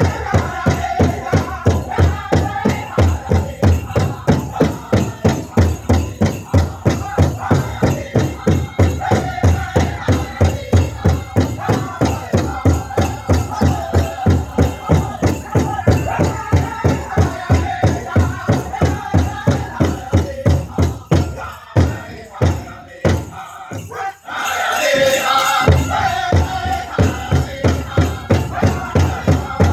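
Powwow drum group singing a chicken dance contest song over a fast, steady drumbeat. A little past twenty seconds in, the drumming breaks off for a few seconds. Loud high voices then come in and the drumbeat starts again.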